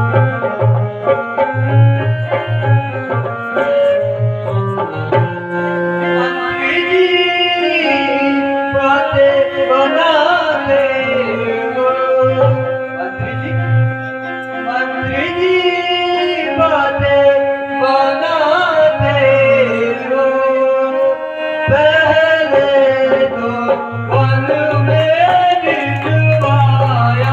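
Live stage music: a held melodic accompaniment with drumming, joined about seven seconds in by a singing voice that carries the song.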